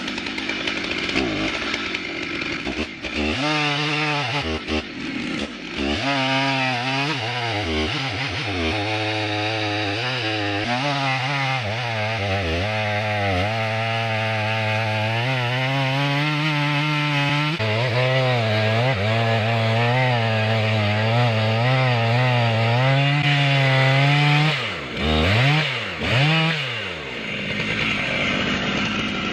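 Farmertech G888 122cc two-stroke chainsaw running under load as it cuts through a large log, its engine pitch wavering as the chain bites. Near the end the engine speed drops and picks up twice.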